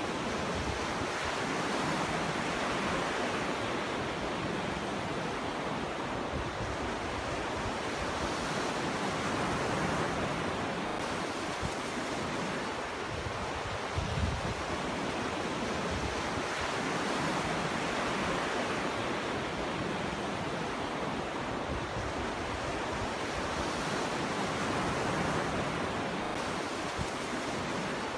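Ocean waves breaking on a beach and washing up the shore: a continuous rush that swells about every seven or eight seconds, with a short low thump about halfway through.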